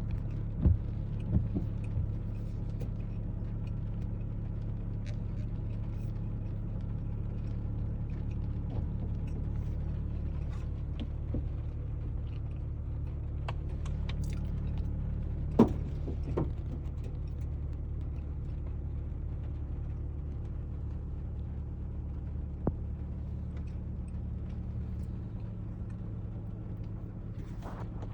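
Vehicle engine idling steadily with a low hum, with a few sharp knocks or clicks over it.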